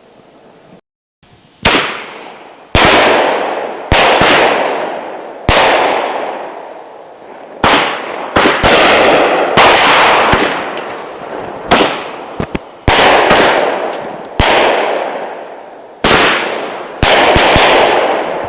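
Shelton's Neutron Splitter 12-shot 200-gram fireworks cake firing: about a dozen sharp bangs, one to two seconds apart, each followed by a fading hiss from the breaks' strobe effects.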